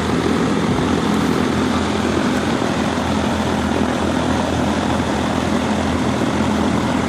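Heil air conditioning system running, its blower pushing air with a steady rush over a constant low hum. It is working against high static pressure from an undersized return, starving for air.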